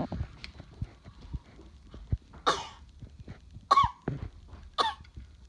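A toddler makes three short vocal noises about a second apart, between soft low knocks.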